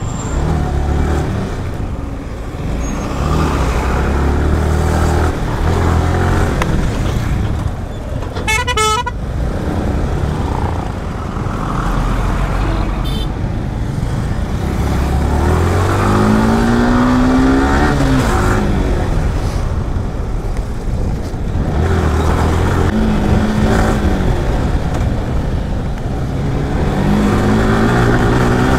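Yamaha R15M motorcycle's single-cylinder engine running at low speed in congested road traffic, with other vehicles' engines around it. A vehicle horn sounds briefly about nine seconds in, and the engine pitch rises and falls a couple of times in the second half.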